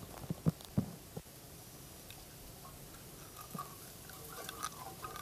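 Clear fluid pouring from a plastic jug into a plastic funnel on a tractor, fairly quiet, with a few short sharp knocks in the first second.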